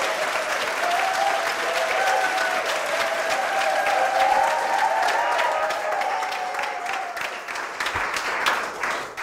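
Studio audience applauding, dense clapping that dies away near the end.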